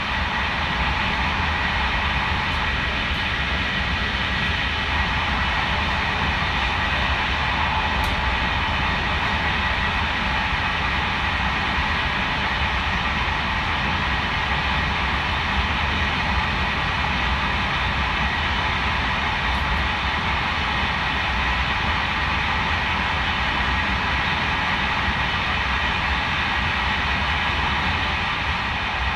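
Steady running noise of a passenger train heard from inside the carriage: a low rumble under a rushing hiss, unchanging throughout.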